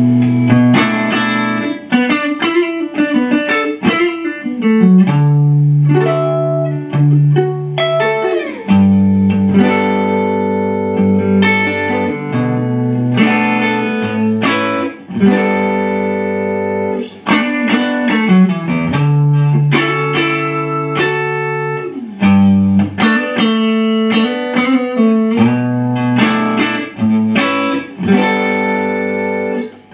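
Macmull Stinger electric guitar played through a Strymon OB.1 optical compressor, engaged, into a Marshall JCM 2000 DSL amp: chords and single-note phrases with a few slides, the notes ringing on.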